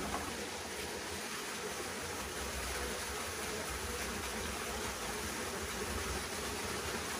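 Steady rush of a shallow rocky river flowing, an even hiss with no separate events.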